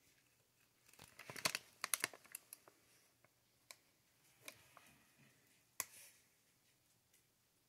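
Small wooden clicks and taps from Jenga blocks being nudged and pushed in the tower. A quick flurry of clicks comes about a second in, then a few single clicks spaced out.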